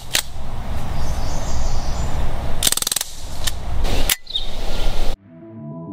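BB air gun shots over steady outdoor background noise: a sharp shot at the start, a quick rapid-fire string of shots about three seconds in, and two more single shots after it. The sound cuts off abruptly about five seconds in, and electronic music begins.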